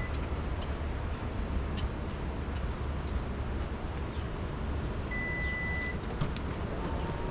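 Steady low rumble of road and engine noise inside a moving car's cabin, with a few faint clicks and a short high beep about five seconds in.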